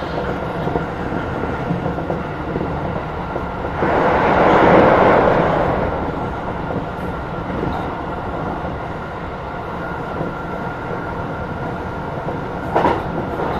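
Tokyo Metro 16000 series electric train running along the line, with steady wheel-on-rail noise, some rail-joint clatter and a faint steady whine. The noise swells for about two seconds around four seconds in, and there is a short knock near the end.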